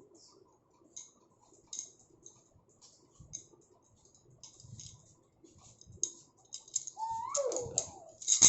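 Faint scattered clicks and taps, then about seven seconds in a baby's drawn-out vocal sound that slides down in pitch, with a sharp click near the end.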